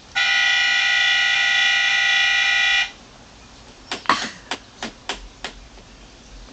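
A horn sounding one steady, buzzy blast of about two and a half seconds, then a string of sharp clicks about a second later.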